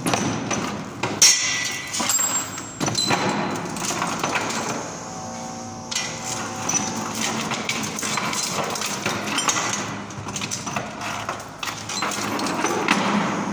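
Magnetic drill with an annular cutter boring a hole through a steel pipe: an uneven grinding with clatter and sharp knocks as the cutter throws off long curled chips.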